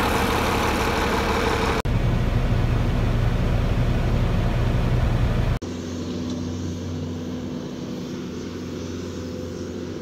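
Farm machinery engines running in three short clips that cut off abruptly about two seconds and about five and a half seconds in. The middle clip is the loudest and deepest; the last is a quieter, steady engine hum.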